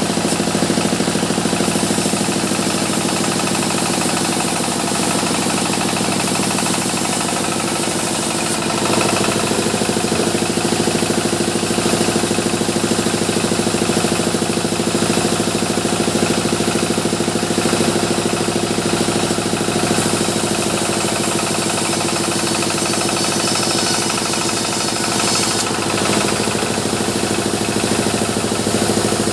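Sawmill machinery running with a steady, loud engine-like drone. Its tone shifts about nine seconds in.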